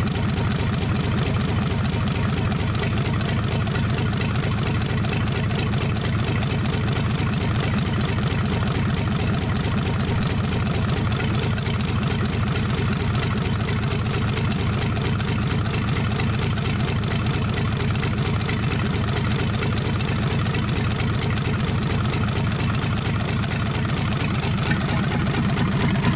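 Isuzu 6BD1 six-cylinder diesel engine running steadily with its rocker cover off, the valve gear exposed.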